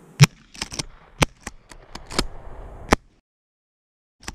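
A quick run of about eight sharp clicks and knocks over three seconds, the loudest a quarter second in. Then the sound cuts out completely for about a second, and one more click follows.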